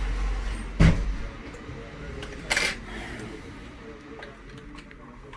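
Hands handling a laptop screen panel and its parts: a sharp knock about a second in, a brief rustle a little later, then a few light ticks.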